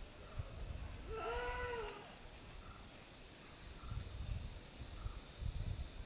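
A single short animal cry about a second in, its pitch rising and then falling over under a second, against a faint low rumble. A tiny high chirp follows a couple of seconds later.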